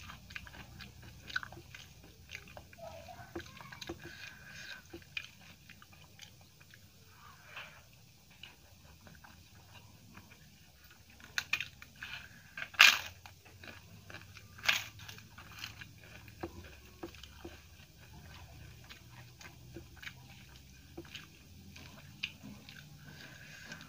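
Close-up eating sounds: soft wet chewing and smacking of rice and curry, with a cluster of loud crisp crunches of papadam about halfway through.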